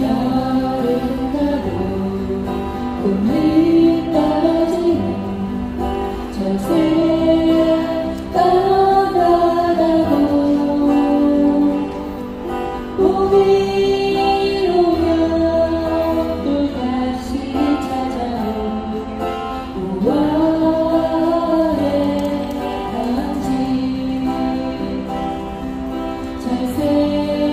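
Female vocals singing a slow ballad, accompanied by acoustic guitar.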